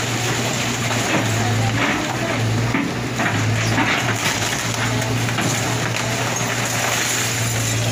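Excavator engine running steadily with a low drone while it tears into the building, with scattered crunching and cracking of debris over it.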